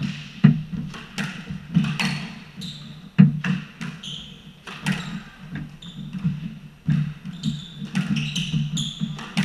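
Squash rally: the ball cracks off rackets and walls about once a second, each hit ringing in the enclosed court, with footfalls and short sneaker squeaks on the wooden floor between them.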